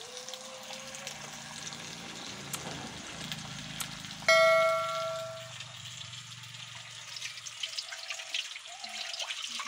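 Pork frying with a steady sizzle, then about four seconds in a loud bell-like ding that rings and fades over about a second: a subscribe-button notification sound effect. Near the end, water splashing as hands rinse food in a pot.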